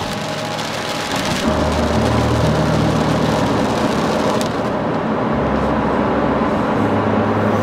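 Nissan X-Trail driving on a rain-wet expressway, heard from inside the cabin: steady tyre hiss and road noise with the engine's low hum.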